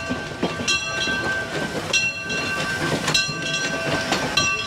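Steam locomotive moving slowly along the station platform, its bell ringing about once every second and a quarter over the clank of the running gear.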